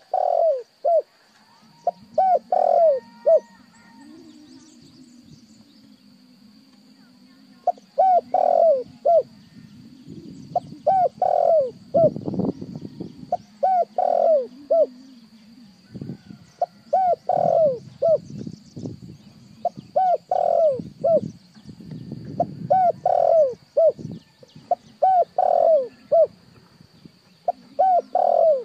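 Spotted dove cooing: a repeated phrase of three or four short falling coos, given about every three seconds.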